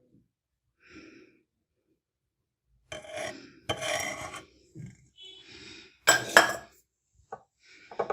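Kitchenware being handled as lavender-infused oil is transferred from the pot into a glass bottle: scraping and rubbing, then two sharp clinks close together about six seconds in.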